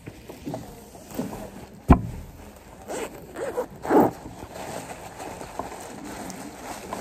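Fabric backpack being handled: the bag's fabric rustling and its zipper being pulled, with a sharp knock about two seconds in.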